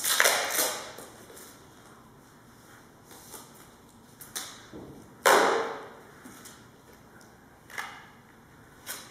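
A black plastic bag being handled with gloved hands, rustling and crinkling in short bursts, the loudest about five seconds in.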